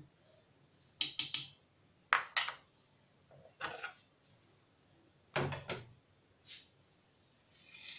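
A spoon clinking and knocking against a bowl and a blender jar: several separate short clinks as spoonfuls of sugar are added to fruit in the jar.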